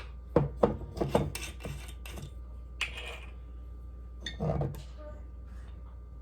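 A spoon clinking and tapping against a bowl: a quick run of sharp clicks in the first two seconds, then a few softer knocks.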